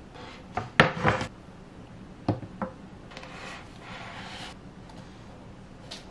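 Kitchen handling sounds: a quick run of clicks and knocks about a second in, two sharper knocks a little later, then a soft scraping rustle. They come from a plastic ketchup squeeze bottle, a plate and a wooden serving tray being handled on a countertop.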